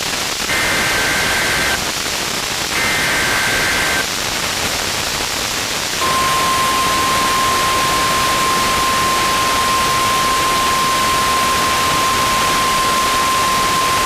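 NOAA Weather Radio Required Weekly Test over a weather radio receiver with constant static hiss: two short warbling SAME header data bursts, each about a second long, then after a pause the steady 1050 Hz warning alarm tone starts about six seconds in and holds.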